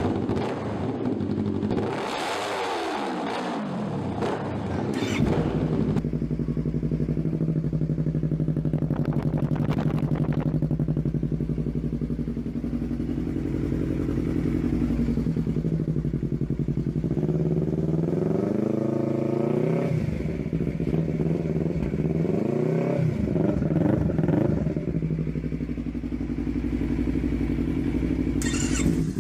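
Yamaha YZF-R3 parallel-twin engine revving at first and settling to a steady idle about five seconds in. It is then revved up and let fall back to idle several times, most strongly past the middle.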